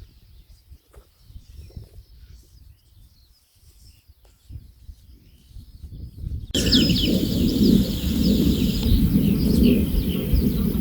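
Small birds chirping over a low rumbling noise. About six and a half seconds in the sound jumps abruptly much louder: a heavy low rumble with loud, quick chirps on top.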